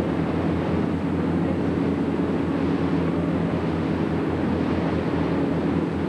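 A boat's engine droning steadily, with a rush of wind and water over it.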